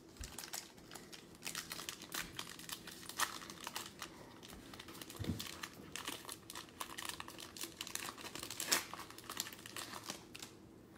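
Plastic trading-card pack wrapper crinkling and tearing as it is pulled open by hand, in dense irregular crackles.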